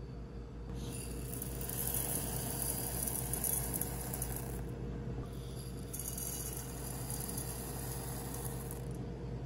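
Dry rice grains poured into a rice cooker's non-stick inner pot, a hissing patter of grains landing on grains, in two pours: aromatic white rice from about a second in, then brown aromatic rice after a short pause around five seconds.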